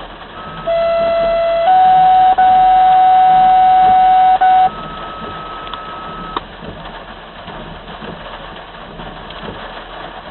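Scanner radio sounding a fire dispatch two-tone page: a steady lower tone for about a second, then a louder, higher tone held for about three seconds, followed by a fainter high tone for under two seconds. After that only faint radio hiss.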